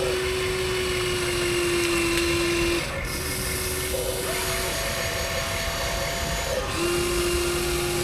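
Small electric motors of radio-controlled construction models whining at steady pitches, one cutting out about three seconds in and others starting and stopping in turns as the machines work, over a steady hiss.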